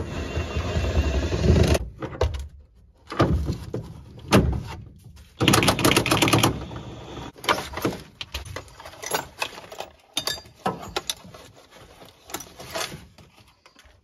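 Cordless impact wrench with an 11/16 socket hammering on a seat-belt anchor bolt at its lowest speed setting, loosening it in several short bursts, the longest at the start and about halfway through. Afterwards come light metal clicks and knocks as the loosened bolt and belt hardware are handled.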